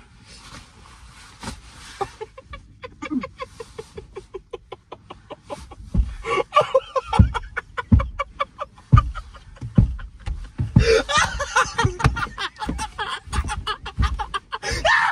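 Two people laughing hard in rapid pulsing bursts. It starts as stifled, choked giggling and grows louder into full open laughter near the end, with a few dull thumps in between.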